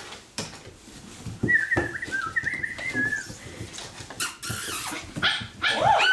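Siberian Husky puppy whining in a high, wavering tone for about two seconds, among knocks of small paws against a glass door and wooden floor. Near the end come several short rising and falling yips and whines.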